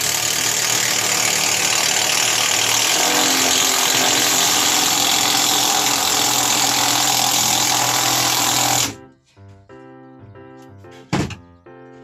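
Cordless drill running loud and continuously for about nine seconds as it drives a screw into a plywood mounting board, then cutting off abruptly. A single sharp knock follows about two seconds later.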